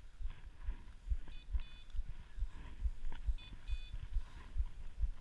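An electronic beeper on a bird dog's collar gives a short, high double beep about every two seconds, twice here. Under it are dull, regular low thumps of walking footsteps.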